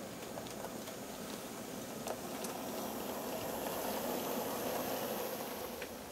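Minitrix N-scale Köf model shunting locomotive and its silo wagons running past on the track: a steady rolling rush with a few light clicks. It gets louder, with a faint high whine, about three to five seconds in as the locomotive passes closest.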